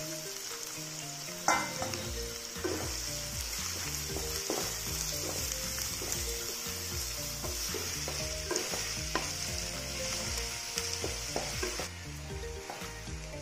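Sliced onions frying in hot oil in a kadai, sizzling steadily. From about a second and a half in, a wooden spatula stirs them, scraping and knocking against the pan again and again. This is the early stage of frying onions into crisp beresta on a high flame.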